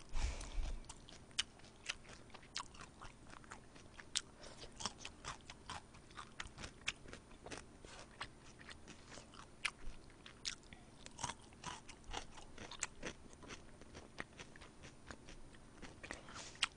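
Close-miked chewing of soy sauce fried chicken: a string of short, crisp crunches and mouth clicks at an irregular pace, a few a second.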